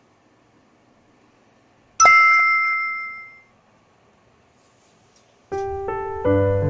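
A bright bell-like chime sound effect rings about two seconds in and fades away over about a second and a half. Piano background music starts near the end.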